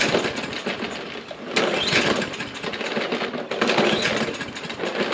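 Briggs & Stratton lawn mower engine being pull-started: the recoil starter is yanked about every two seconds and the engine cranks with a rising whir each time but does not catch. This is the mower that won't start after sitting unused for years.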